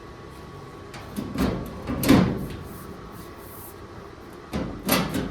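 Two bursts of scraping and clunking: a sheet-metal bed-side panel being handled and set against the truck bed, the louder one about two seconds in and a shorter one near the end.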